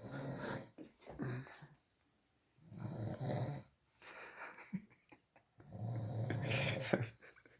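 A sleeping man snoring: rough, rattling breaths roughly every one and a half to two seconds, with short pauses between them.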